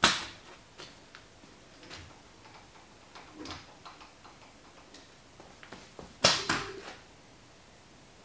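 A sharp click at the start, then scattered light clicks and taps, and a louder clattering knock with a brief low hum about six seconds in. No motor runs.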